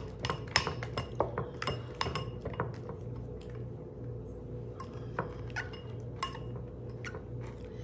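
Rubber spatula stirring and scraping a thick yogurt dressing around a glass mixing bowl, with quick clicks and taps against the glass, busiest in the first few seconds and sparser after.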